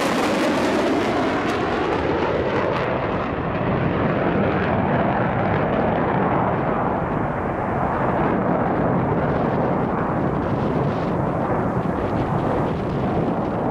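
Jet engine noise from two Dassault Mirage 2000N fighters, each powered by a single SNECMA M53 turbofan, flying a display pass. It is loud and steady, and its sharp high hiss fades after about two seconds, leaving a deep rumble as the pair moves away.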